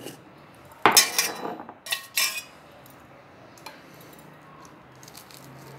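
Dishes clattering: bowls knocked and shifted on a hard counter. There is a rattling clatter about a second in, then two sharper knocks a little after two seconds.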